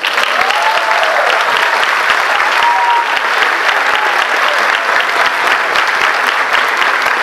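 Audience applauding at the end of a brass ensemble piece; the clapping starts suddenly and stays dense and steady, with a few drawn-out cheers over it in the first three seconds.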